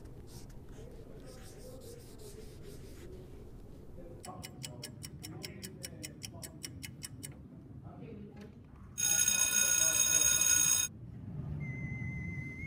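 A clock ticking quickly, about five ticks a second, for about three seconds, then a loud electric bell ringing for about two seconds. Near the end a steady high electronic tone starts.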